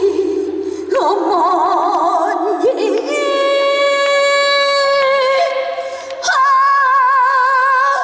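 Female trot singer singing live into a microphone over backing music. Her voice has a wide vibrato, and she holds two long notes, the first from about three seconds in and the second near the end.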